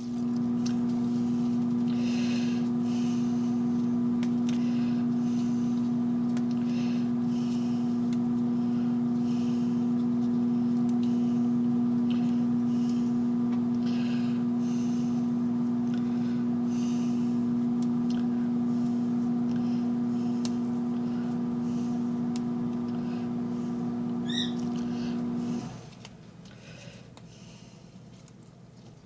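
Microwave oven running with a steady low hum while it dries a batch of basil leaves, then shutting off suddenly near the end. A brief high chirp comes just before it stops.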